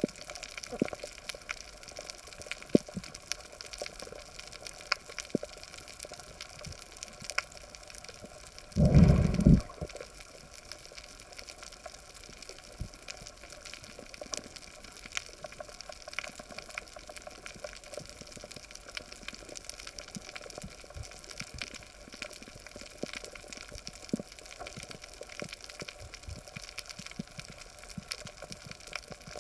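Underwater reef ambience: a steady hiss with a dense, irregular crackle of sharp clicks from snapping shrimp, and one short, loud low rumble about nine seconds in.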